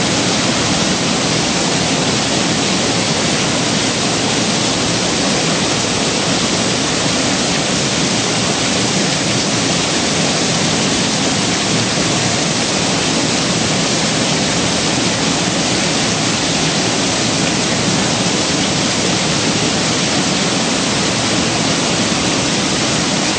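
Waterfall running hard over a sandstone ledge and splashing into its plunge pool: a loud, steady rush of falling water.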